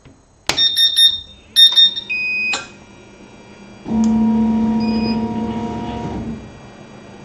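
A CO2 laser cutter powering up: a few short electronic beeps in the first two and a half seconds, then a steady motor hum that lasts about two and a half seconds and stops a little past six seconds in.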